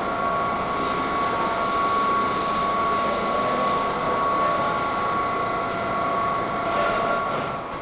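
Electric commuter train at the station, giving a steady electrical whine of several held tones over a continuous rushing noise, which fades out near the end.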